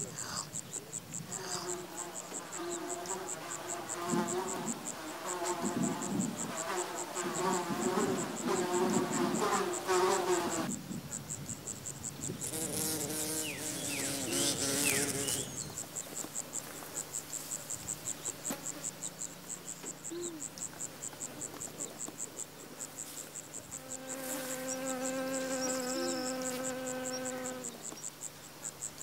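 A high, fast-pulsing insect trill runs steadily throughout. Over it are other pitched sounds of unclear source: a wavering, loudest stretch in the first ten seconds and a steady held tone for a few seconds near the end.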